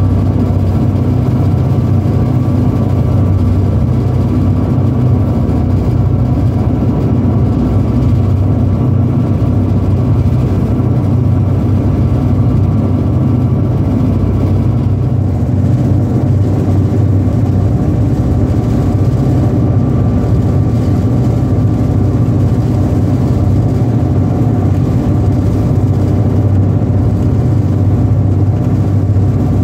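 Hydrofoil's engines droning steadily at cruising speed, a loud, even low hum with no let-up.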